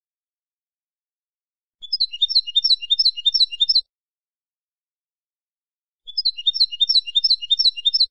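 Wild European goldfinch song: two bursts of about two seconds each, every one a fast run of the same chirping figure repeated, with silence between them.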